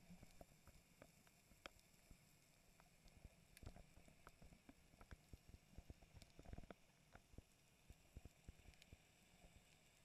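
Near silence underwater: a faint muffled rumble with scattered, irregular soft clicks and ticks.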